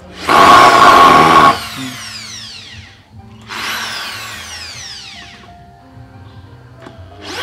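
Bosch GSB 550 corded 550 W impact drill running into a wooden plank in trigger pulls: one full-speed run of about a second, then two shorter ones. After each pull the motor's whine falls in pitch as it spins down.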